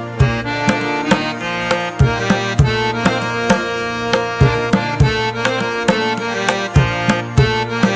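Background music: a steady hand-drum beat under a sustained melodic instrument.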